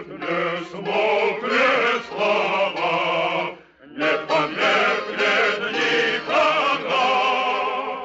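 A Russian chorus singing, many voices holding sustained notes, with a short break just before the middle. Heard on an old 1940s radio broadcast recording with a muffled top end.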